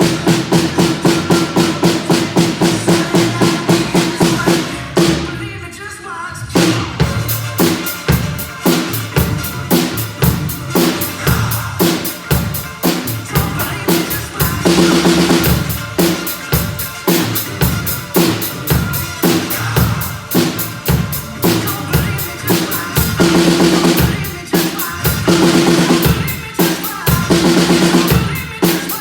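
A drum kit played in a fast, dense beat, with bass drum, snare and rim hits and rolls. A steady low tone holds underneath, and the playing eases briefly about five seconds in before picking up again.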